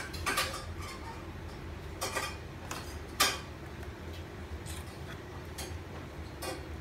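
Small clear plastic cup being handled by small hands: scattered light plastic clicks and taps, the loudest knock about three seconds in.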